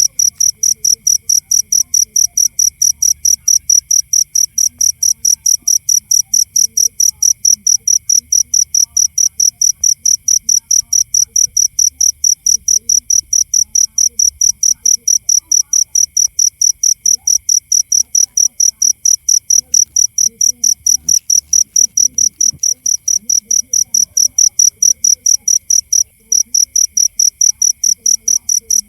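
Cricket chirping in a fast, even rhythm of high-pitched pulses, about four to five a second, over a fainter steady insect trill; the pulses skip briefly about 26 seconds in.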